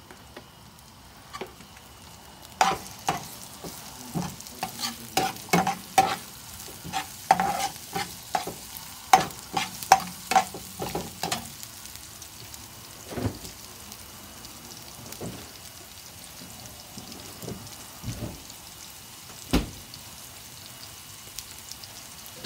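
Sliced onion, garlic and cumin seeds sizzling in oil in a nonstick frying pan. A metal slotted spatula stirs and scrapes against the pan in quick clacks from about two to eleven seconds in, then gives only a few scattered knocks.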